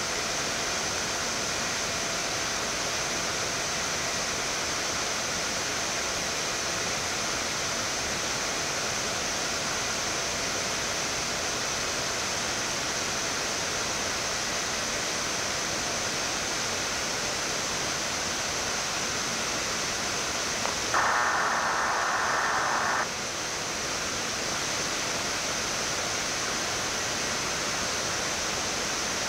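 Steady rushing air noise in a Boeing 787-8 flight deck during the climb after takeoff, with a faint steady high whine above it. About 21 seconds in comes a two-second burst of thin, radio-like noise, the loudest sound in the stretch.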